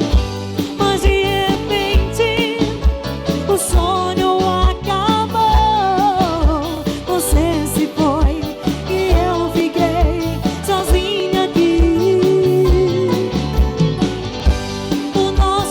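Live band music: an upbeat song with a steady, regular kick-drum beat under a wavering melody line.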